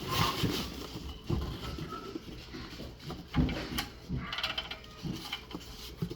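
Hands rummaging in a cardboard box full of foam packing peanuts: irregular rustling, with knocks and clatter as the packed toy train accessory is handled. The loudest knocks come at the start and about three and a half seconds in.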